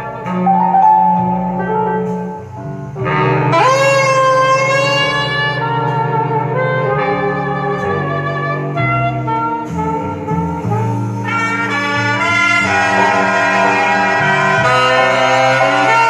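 Recorded jazz played back through a hi-fi system with 22A horn loudspeakers: a wind-instrument lead over a moving bass line, with a note sliding up into a loud held tone about three seconds in.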